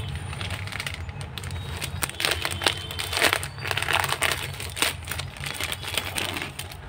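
Crinkling and rustling in irregular bursts, as something is handled, over a steady low hum.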